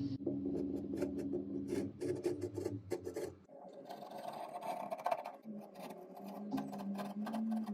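Repeated rasping, scraping strokes of a hand tool working on plasterboard, over a steady low hum.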